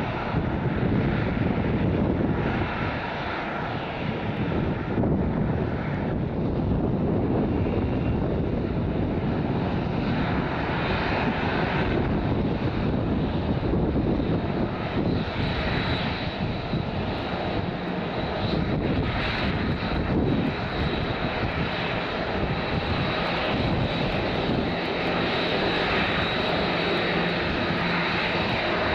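Boeing 737-800's CFM56-7B jet engines running at taxi power, a steady rushing engine noise; a high steady whine comes in about halfway through and grows as the jet turns toward the listener.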